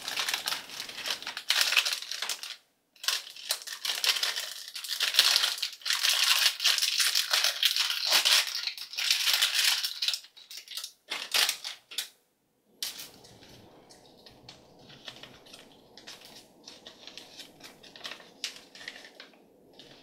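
Thomas & Friends Minis plastic blind bag crinkling loudly as it is squeezed and torn open by hand, a dense crackle of many quick bursts. About twelve seconds in it drops to faint, sparse rustles and clicks of a paper leaflet being handled.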